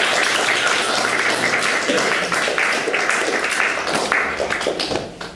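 Audience applauding, a dense patter of clapping that dies away near the end.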